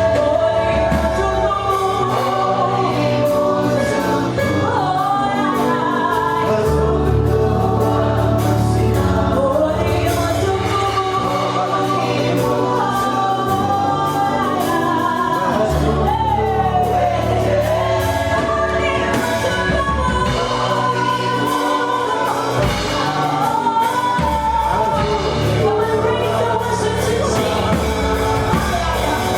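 Gospel choir singing over a band with a steady bass line.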